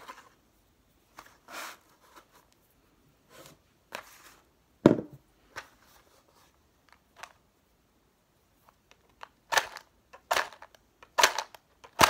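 Scattered small clicks and handling scrapes, then in the last few seconds a run of four quick scratching strikes: a match being struck against its box without lighting, until the match breaks.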